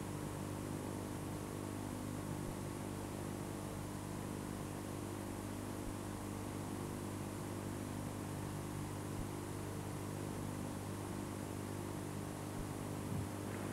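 Steady low electrical hum with tape hiss from an old video recording, unchanging and with no other sound.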